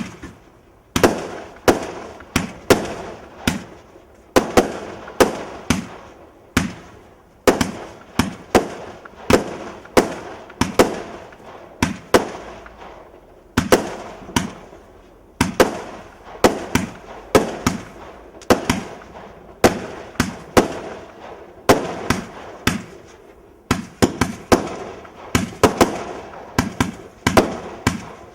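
Multi-shot firework barrage (cake) firing a long, steady run of sharp bangs, about two a second, each followed by a short crackling tail.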